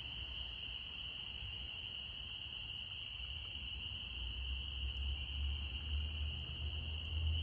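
A chorus of night insects keeps up one steady, high, unbroken note. A low rumble builds beneath it from about halfway through.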